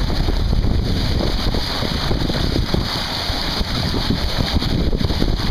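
Wind buffeting the microphone over the steady rush of water along a sailboat's bow as it moves through the sea.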